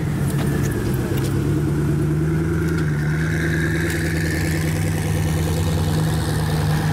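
Koenigsegg Agera's twin-turbo V8 running steadily at low revs as the car pulls away slowly.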